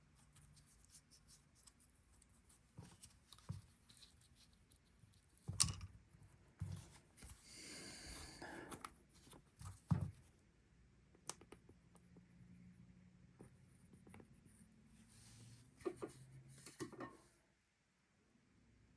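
Quiet small handling sounds at a workbench: scattered light taps and clicks of tools and knife parts, a couple of sharper knocks, and a soft rubbing hiss about eight seconds in.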